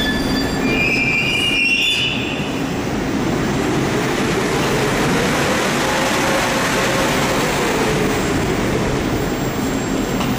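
Moscow metro train of the 81-775/776/777 Moskva-2020 type at a station platform: a few short high tones in the first couple of seconds, then a steady rumbling noise.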